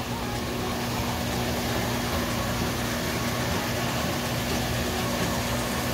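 Steady machine hum over a constant broad hiss, even throughout, like a running fan or air-conditioning unit.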